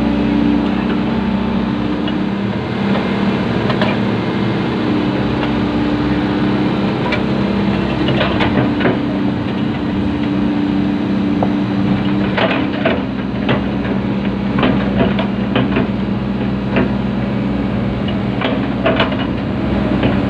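Sumitomo 120 hydraulic excavator's diesel engine and hydraulics running steadily, heard from inside the cab, with scattered knocks and clanks from about 8 seconds in.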